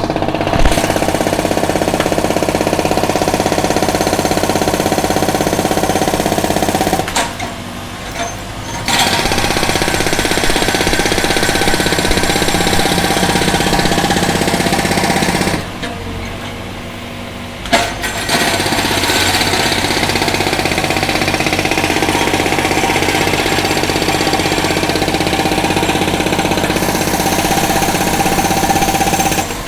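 Concrete breaker hammering rapidly into a road surface, with an engine running underneath. It stops twice for a couple of seconds, about a quarter of the way in and just past the middle, leaving only the engine, then resumes.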